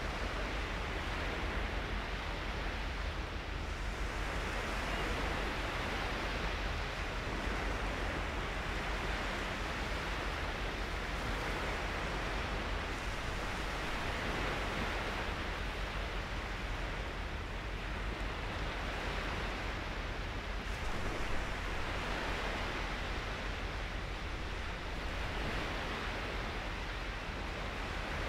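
Steady rushing noise that swells and eases every several seconds, over a constant low rumble.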